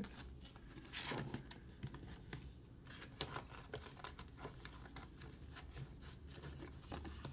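Paper banknotes rustling as a stack of cash is tapped square and slid into a plastic envelope folder, with soft crinkles and small ticks of the plastic. A busier burst of rustling comes about a second in.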